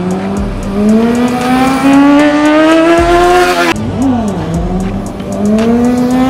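High-revving motorcycle engine accelerating hard, its pitch climbing steadily for about three and a half seconds before cutting off abruptly. After a brief dip it starts low again and climbs once more near the end.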